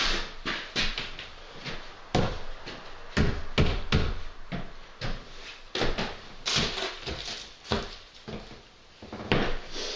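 A run of irregular knocks and clunks, several a second at times, of hard objects being handled and set down during fitting work.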